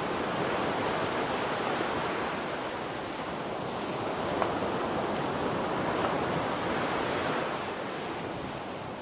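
Steady rushing of wind past a moving car, swelling and easing a little, with a few faint clicks, fading toward the end.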